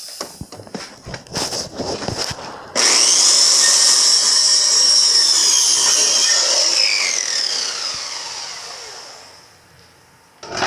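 Handheld electric circular saw: a few knocks and clicks as it is handled, then the motor starts suddenly about three seconds in with a loud, steady high whine; after a few seconds the whine falls in pitch and fades as the blade spins down. A short knock near the end.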